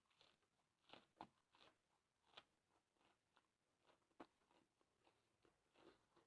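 Faint, close-up chewing of raw vegetables: irregular crisp crunches and wet mouth clicks, about a dozen in the few seconds.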